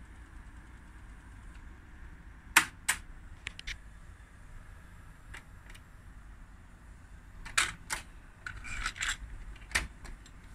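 Sharp clicks from the cassette deck of a Sencor S-4800 stereo boombox as its keys are pressed: a pair a few seconds in and more near the end. Between them comes a short plastic clatter as the cassette door opens and the tape is lifted out.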